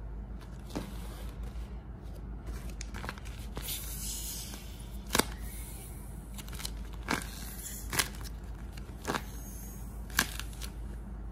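Homemade paper squishy of tape-covered paper crinkling as hands squeeze and handle it, with about six sharp crackles.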